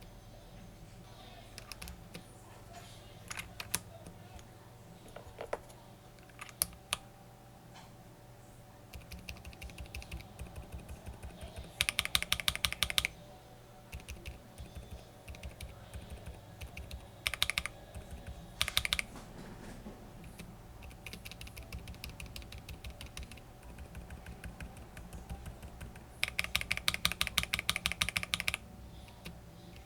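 Typing on a mechanical keyboard fitted with keycaps and Outemu prelubed silent tactile switches. Scattered single keystrokes come first, then quick runs of rapid typing around the middle and again near the end.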